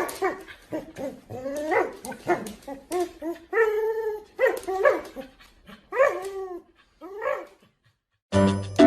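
A dog vocalising in a run of short, whiny barks and yips that rise and fall in pitch, with one longer drawn-out call about halfway through. Music comes in near the end.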